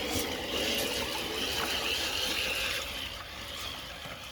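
Traxxas TRX-4 Sport RC crawler driving, its electric motor and gears whining with a wavering pitch for about three seconds, then easing off, over a steady hiss of rain and water.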